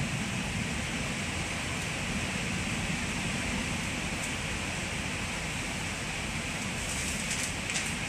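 Steady running noise inside a moving passenger train carriage: a low rumble of wheels on the track under a constant hiss, with a few short ticks near the end.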